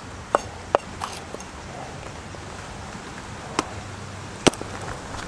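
Large knife chopping jackfruit on a round wooden chopping block: a handful of short, sharp knocks of the blade striking the wood, irregularly spaced, the loudest near the end.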